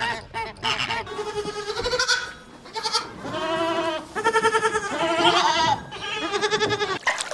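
A farm animal bleating: a string of repeated calls, each with a quavering, wavering pitch.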